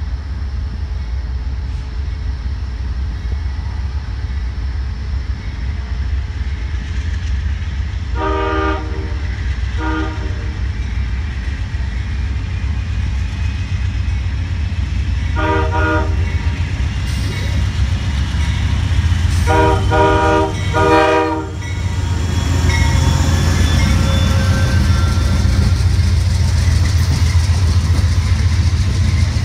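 Diesel-hauled train approaching and passing, with the locomotive's air horn sounding five blasts: a long one and a short one, another long one about halfway through, then two more close together. A steady low rumble runs underneath and grows louder as the train comes by in the last third.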